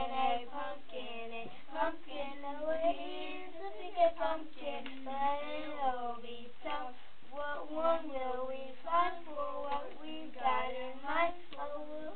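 Young children's voices singing, the pitch moving continually.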